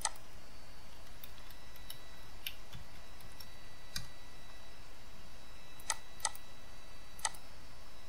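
Scattered sharp clicks of a computer mouse and keys being worked at a desk, a few seconds apart, the last three louder. Faint steady high-pitched electronic tones run underneath.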